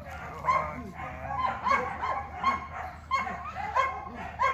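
A dog barking repeatedly, short pitched barks about two a second.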